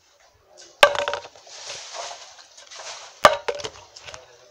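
A potato-chip tube being flipped and landing on a table top: a sharp knock about a second in, a rustle, then another sharp knock with a few small rattling ticks after it.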